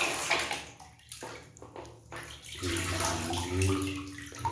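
Water splashing and sloshing in a plastic basin as a hand scrubs a toy under the soapy surface; the splashing dies down about a second in, then picks up again.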